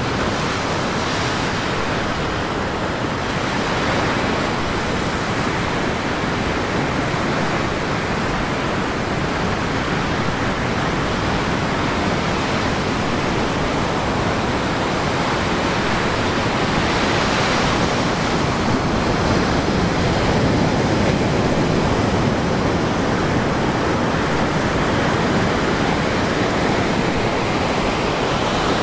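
Pacific Ocean surf breaking and washing up a sandy beach: a continuous rush of wave noise that surges louder about two-thirds of the way through as a wave breaks and foams in.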